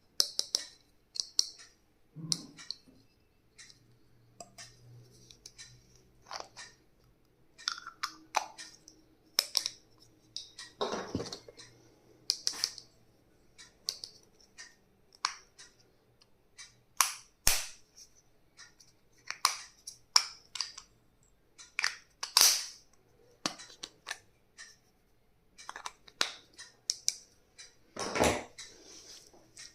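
Hands handling stationery and its packaging: irregular clicks, taps and short plastic rustles, with a few louder rustling bursts around the middle and near the end.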